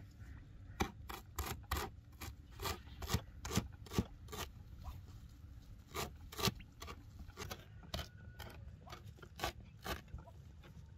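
Cleaver chopping fresh parsley on a wooden cutting board: a run of sharp knocks of the blade on the wood, about two a second and slightly uneven.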